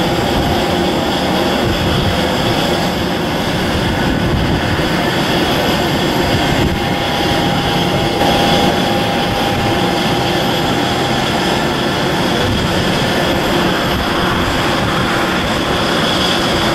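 Turboprop engines of an airBaltic Bombardier Q400 running on the runway: a steady drone with a thin whine over it.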